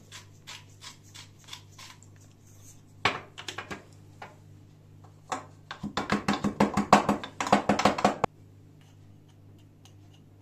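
A wooden pestle pounding garlic cloves with salt in a wooden mortar. Light, spaced taps come first, then a short cluster of strikes, then a fast run of louder blows in the second half that stops abruptly.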